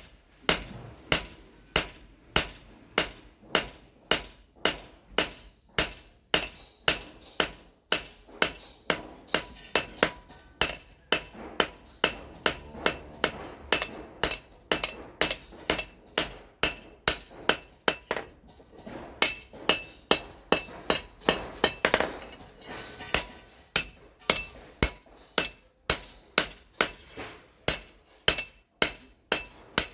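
Blacksmith's hammer striking steel over an anvil in a steady rhythm of about two blows a second, each blow leaving a short metallic ring, while forging a billhook machete blade.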